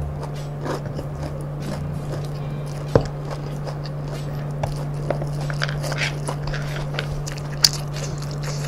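Close-up crackly chewing of crunchy fried kremesan crumbs and rice, with fingers picking food off a wooden tray and two sharp clicks about three and seven seconds in.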